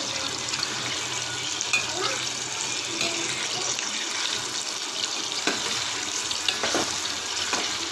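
Soya chunks frying in hot oil over a high flame: a steady sizzle with scattered crackles.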